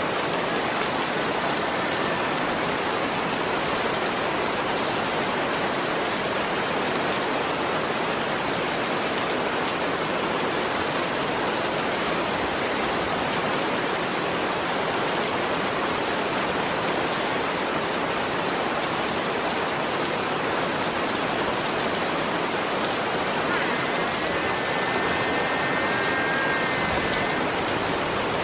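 Heavy rain pouring down in a steady, even hiss. Near the end a faint high-pitched tone sounds for a few seconds.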